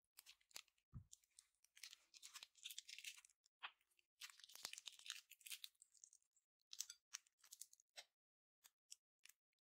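Slime being squished and worked by hand, giving quiet sticky crackles and small pops in dense runs that thin out to a few separate clicks near the end. There is a soft low thump about a second in.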